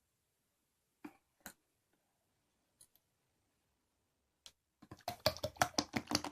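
A few scattered single clicks, then a fast, dense run of clicking and tapping over roughly the last second and a half.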